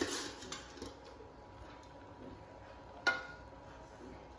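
A metal spoon working rice in a cooking pot: a short scrape of spoon through rice at the start, then a single sharp clink of the spoon against the pot about three seconds in.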